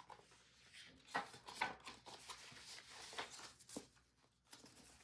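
Faint handling of a paper album photobook: a handful of light clicks and short paper-and-card rustles as the CD is pressed onto its plastic holder and the book is closed.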